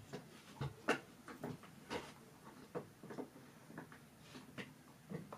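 Laptop keyboard typing: scattered, uneven key taps with short pauses between them.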